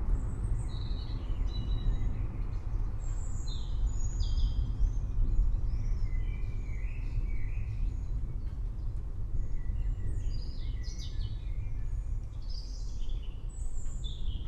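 Forest birds chirping and calling, short high calls scattered all through, over a steady low rumble.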